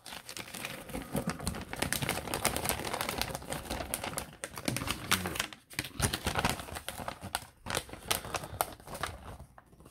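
A folded paper instruction sheet being opened out and handled: a dense run of crinkling, crackling paper rustles that thins out in the second half.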